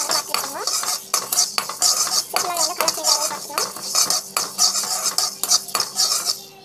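A spatula stirring and scraping small dry seeds around a metal pan. The seeds rattle and the spatula scrapes in quick, irregular strokes with short squeaks against the pan bottom.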